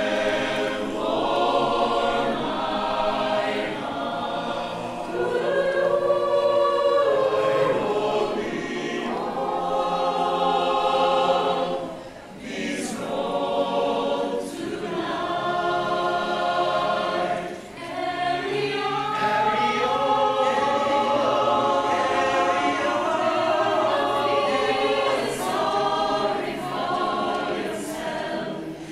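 Mixed choir of men's and women's voices singing a cappella in sustained chords, with short breaks between phrases about twelve and eighteen seconds in.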